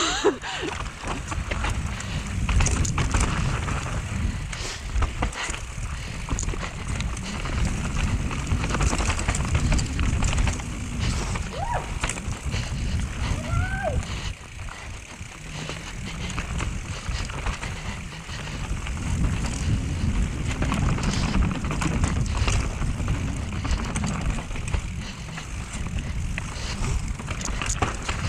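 Mountain bike descending a rooty dirt trail: a constant rumble of wind and tyres on the microphone with the bike's chain and frame rattling and knocking over roots. A couple of short squeaks come through in the middle.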